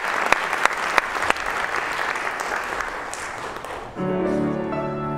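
Audience applause with scattered sharp claps, fading out over about four seconds; then instruments come in together with held chords.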